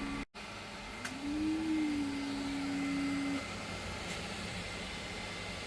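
3D printer running: its stepper motors give a single whining tone that rises slightly just after a second in, holds steady, and stops about three and a half seconds in, over a steady hum.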